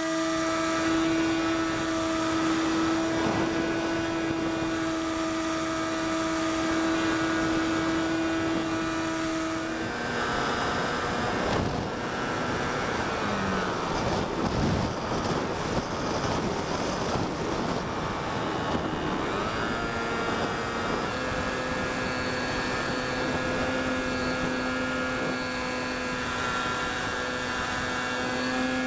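RC model airplane's motor and propeller running in flight, heard from a camera on board, with wind rushing past. The pitch holds steady, then drops about ten seconds in and wavers through several throttle changes before settling lower near the end.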